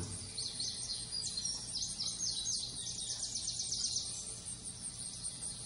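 Small birds chirping: quick, high, falling chirps that come fastest in a run through the middle and thin out near the end, over a low steady hum.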